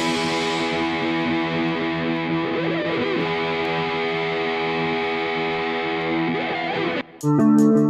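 Background music: held, distorted electric guitar chords with no bass or drums. After a short break near the end, the band comes back in with a steady, quick beat.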